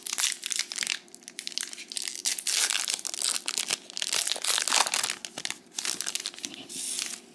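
Foil Disney Lorcana booster pack wrapper crinkling and tearing as it is twisted and pulled open by hand. It makes a long run of irregular crackles and rustles that stops near the end.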